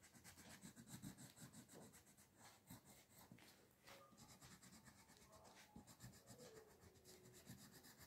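Faint scratching of a crayon drawing short strokes on paper, outlining, heard mostly in the first couple of seconds.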